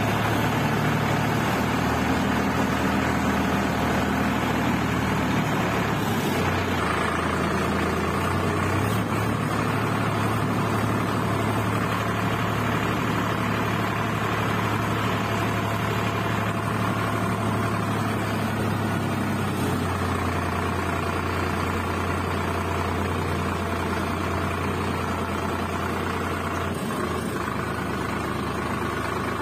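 Sonalika Sikander 47 RX tractor's diesel engine running steadily under way, heard from the driver's seat. Its low note shifts a little a few times as the engine speed changes.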